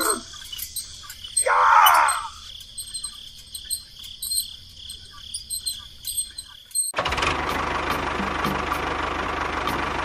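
A faint, steady cricket-like background with a brief voice-like cry about two seconds in. About seven seconds in, a steady motor or engine running noise starts abruptly and keeps going.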